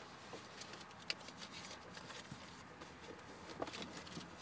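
Quiet vehicle-cabin background with a few faint clicks and rustles of a hand-held phone being moved, the sharpest click about a second in.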